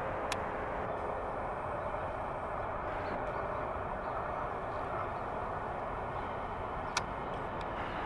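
Steady hum of distant urban traffic, with two sharp clicks: one just after the start and one about seven seconds in.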